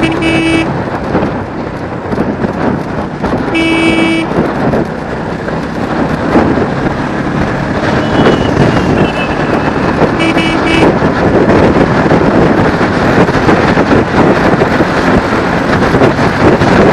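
Vehicle horn honking three short times, near the start, about four seconds in and about ten seconds in, over steady road traffic and wind noise on the microphone.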